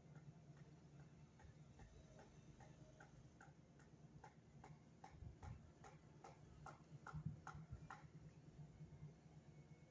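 Faint regular ticking, about two and a half ticks a second, growing louder and then stopping about eight seconds in.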